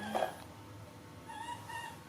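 Baby monkey giving a series of short, high-pitched squeaks, after a brief noisy burst at the very start.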